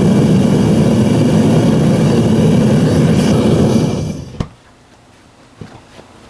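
Devil Forge torch-fired melting furnace running: a loud, steady rushing noise from its burner and blower that cuts off suddenly about four seconds in, followed by a few faint clicks.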